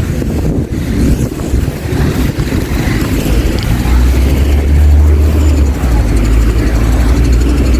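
City street traffic: motor vehicles' engines and tyres rumbling past, with a heavier, deeper engine rumble coming in about four seconds in.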